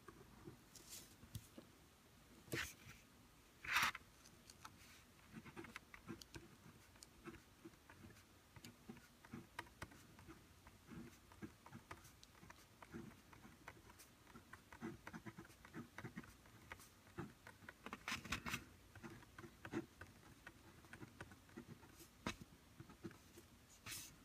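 Pilot G2 Limited gel pen writing on paper: faint, quick scratching strokes, with a few louder taps, the loudest about four seconds in.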